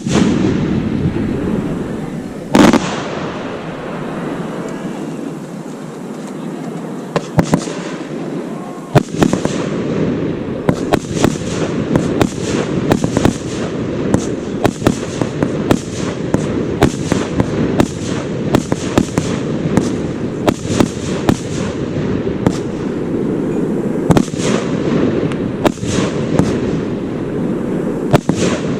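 Fireworks going off: one loud bang about two and a half seconds in, a few more around seven to nine seconds, then a dense run of sharp bangs and crackles, several a second, for the rest.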